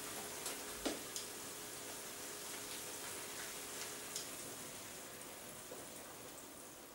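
Risotto sizzling and simmering in a frying pan as ladlefuls of hot vegetable broth go in, a steady soft hiss. A few light metal clicks from the ladle and lid come through, the sharpest about a second in.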